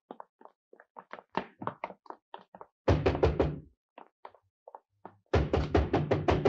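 A fist pounding rapidly on a wooden door in two bursts, one about three seconds in and a longer one near the end, after a string of lighter taps.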